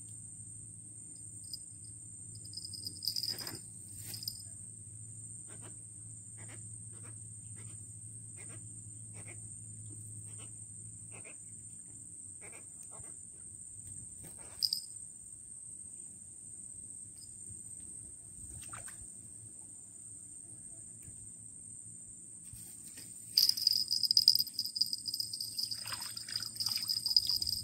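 Insects chirring steadily in a continuous high-pitched drone, with a few faint scattered clicks. About 23 seconds in, a much louder, harsher insect buzz joins in and carries on.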